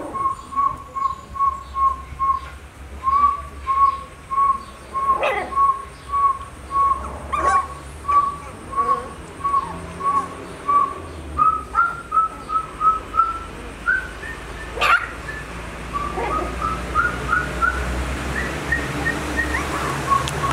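Puppies whining and squealing as they wrestle: a long string of short, high squeaks about twice a second, broken by a few sharper yelps.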